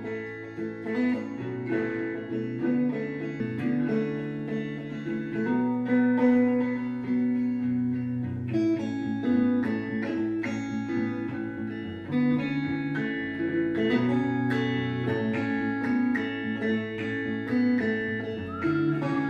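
Background music: a plucked guitar playing a steady run of notes over held low notes.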